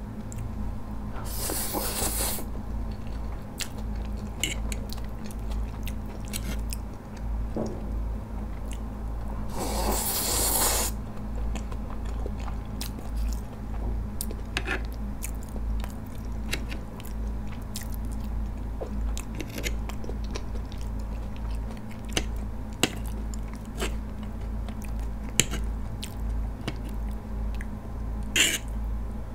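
Close-miked chewing of ramen noodles, with two loud hissing slurps, one about a second and a half in and one around ten seconds, and scattered small clicks of a fork against the plate between mouthfuls.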